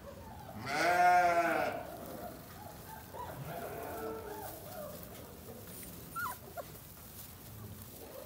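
One loud wavering animal cry lasting about a second, its pitch rising then falling, followed later by a few faint short squeaks from young Kangal puppies.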